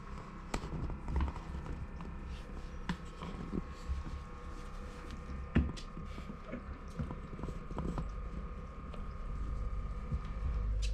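Irregular soft clicks and rustles of kittens moving, licking and grooming on a lap close to the microphone, over a faint steady hum.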